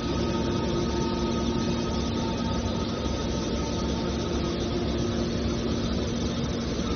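Hydraulic mobile scrap car baler's power unit running steadily: a constant mechanical noise with a few held tones over it.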